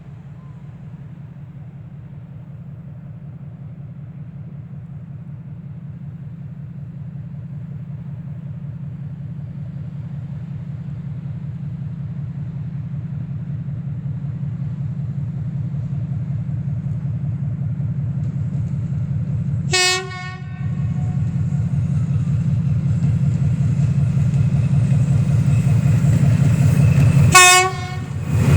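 2TE10UT twin-section diesel freight locomotive, with 10D100 two-stroke diesel engines, approaching with a low engine drone that grows steadily louder. It gives two short horn blasts about seven seconds apart, the second near the end.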